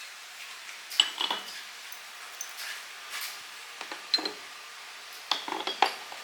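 Metal parts being handled, clinking and knocking against each other: a sharp ringing clink about a second in, a few lighter knocks, then a quick cluster of clinks near the end.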